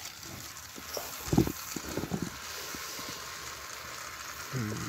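Battery-powered Thomas & Friends TrackMaster toy engine's motor whirring steadily once switched on, with a thump from the engine being handled about a second and a half in and a few lighter knocks after it.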